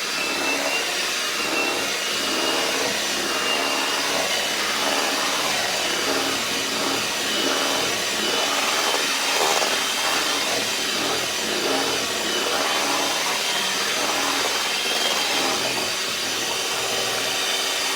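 Electric mixer motor running steadily with a high whine, beating cake batter smooth.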